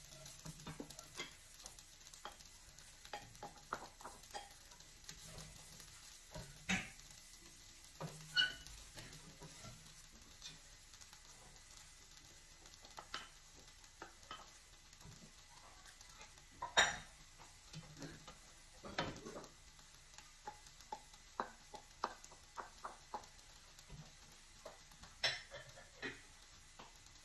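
Wooden spoon stirring rice in a stainless steel pot, with scattered scrapes and knocks, as bowls of chopped vegetables are tapped against the pot and scraped in. One clink rings briefly, and the loudest knock comes a little past halfway.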